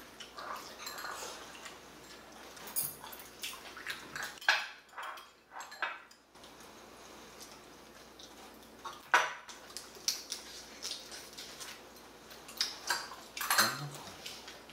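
Metal chopsticks and a spoon clicking and scraping against a ceramic rice bowl and plates during a meal, in scattered clinks, the sharpest about nine seconds in.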